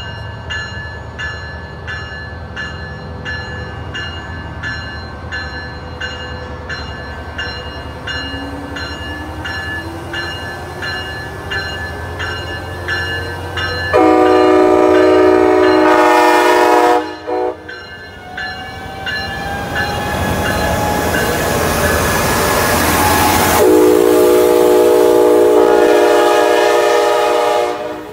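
Amtrak Pacific Surfliner train led by a Siemens Charger diesel locomotive passing close by. A bell rings about twice a second through the first half while the engine's pitch climbs, then the locomotive sounds its horn in two long blasts, about three and four seconds long. Loud engine and wheel noise runs between and under the blasts.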